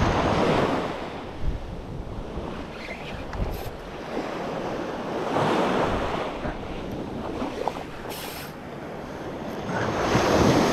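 Small surf breaking and washing up the sand at the water's edge, swelling about every five seconds.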